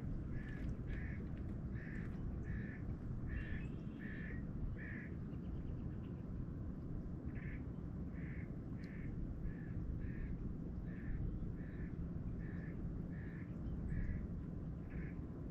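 A bird calling over and over in short calls about two a second, in two runs with a pause of about two seconds between them, over a steady low rumble.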